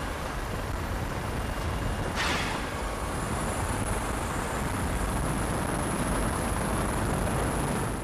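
Helicopter hovering: a steady rush of rotor and turbine noise with a heavy low rumble, and a brief whoosh about two seconds in.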